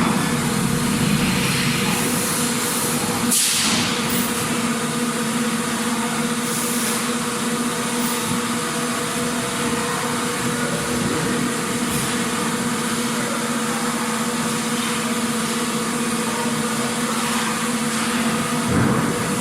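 Factory machinery running steadily: a constant droning hum under a wash of mechanical noise. A brief hiss about three and a half seconds in and a low thump near the end.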